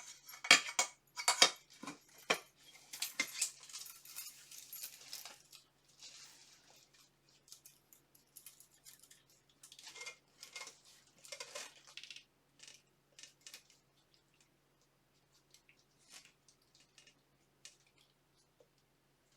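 Steel armour helmet and visor being handled and fitted: metal clinking, clicking and rustling, busiest for the first dozen seconds, then a few scattered light clicks.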